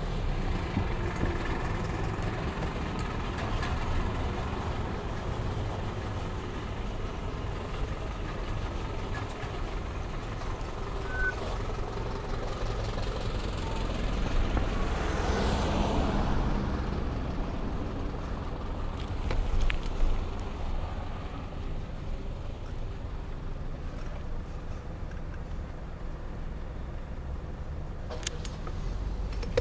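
Street traffic: a steady low rumble of road vehicles, with one vehicle passing close about halfway through, swelling and then fading.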